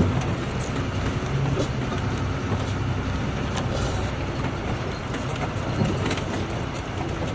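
Empty goods truck's diesel engine pulling hard up a steep dirt hill road, a steady low drone with scattered knocks and rattles.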